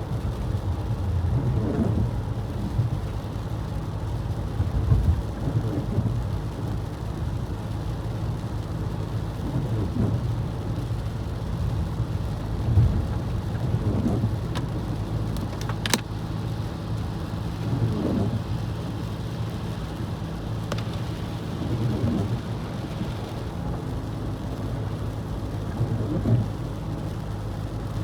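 Steady low road and engine rumble of a car driving on wet, slushy roads, with a soft swish repeating about every four seconds and a single sharp click about halfway through.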